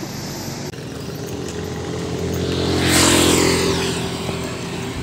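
A motorcycle engine passing close by, growing louder to a peak about three seconds in and then fading away.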